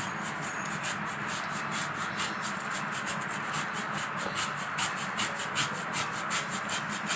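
Block of mozzarella cheese being grated on a handheld metal grater, a scratchy rasping sound in quick, evenly repeated strokes.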